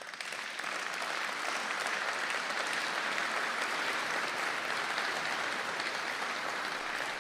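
Audience in a hall applauding, many hands clapping steadily, starting suddenly and easing a little near the end.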